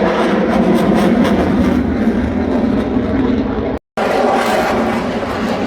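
Display aircraft's engine running loud and steady during an aerobatic routine, with the sound cutting out for an instant near four seconds in.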